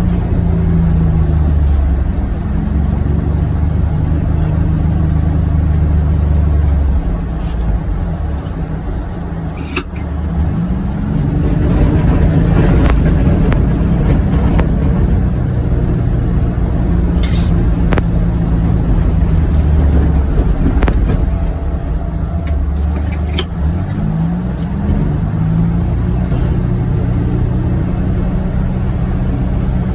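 John Deere Gator XUV835M utility vehicle's three-cylinder gas engine running while under way, its pitch shifting as it speeds up and slows about a third of the way in and again near the end. A few sharp knocks come through over it.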